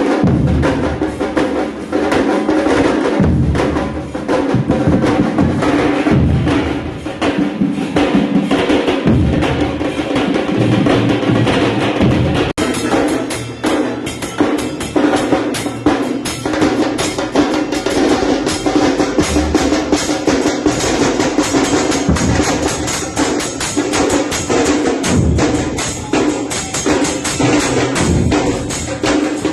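A band of Argentine football-terrace bombos (large bass drums) with other percussion, pounding out a fast, continuous stadium rhythm. The beat breaks abruptly about twelve seconds in and picks up again.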